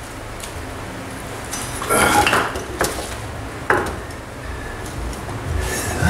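A moped wheel, tyre and brake disc on, being handled and laid flat onto wooden blocks: a clattering clunk about two seconds in, then two sharp knocks shortly after.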